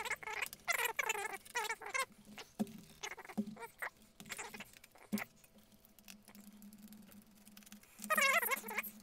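Small screws squeaking as a screwdriver backs them out of a laptop's plastic bottom cover, in a run of wavering squeals during the first two seconds and again near the end. A few sharp plastic clicks fall between the two runs.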